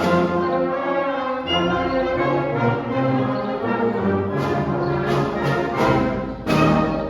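A community concert band playing a lively, comic trombone-feature novelty piece, with brass holding chords over a moving bass line. In the second half come several sharp, accented strikes across the whole band, the loudest about six and a half seconds in.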